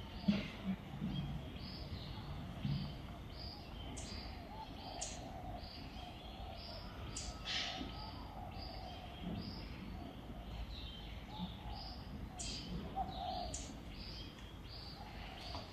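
A bird calling over and over in short high chirps, about two a second, with a few sharper, higher notes mixed in. There are a few soft low thumps in the first few seconds.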